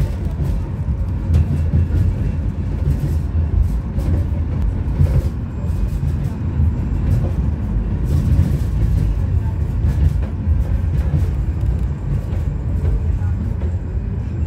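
Tram running along its rails, heard from inside the car: a steady low rumble of wheels and running gear.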